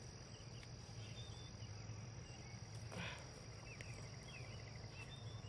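Quiet outdoor ambience: a steady high insect drone with faint, scattered bird chirps, and one brief soft noise about three seconds in.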